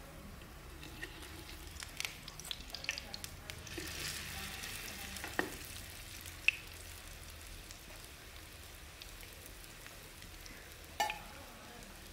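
Bread slices coated in besan and semolina batter shallow-frying in hot oil in a pan, a steady sizzle with scattered crackles. A few sharp clicks come from a fork against the pan as the slices are moved, the loudest a little past six seconds in.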